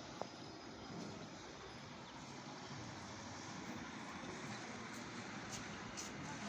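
Steady, faint background noise of vehicle traffic, with a single short click just after the start.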